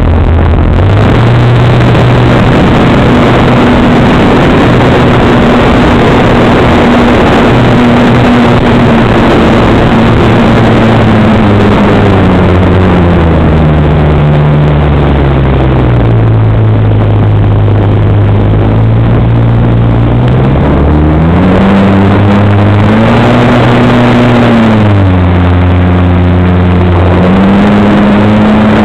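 RC model airplane's motor and propeller heard from on board, loud, over a constant rush of air. The pitch jumps up about a second in as the throttle opens, then sinks and rises again several times as the throttle is worked in flight.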